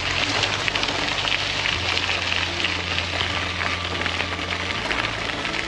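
Heavy rain falling, a dense steady patter and hiss of drops, with low sustained tones underneath that shift twice.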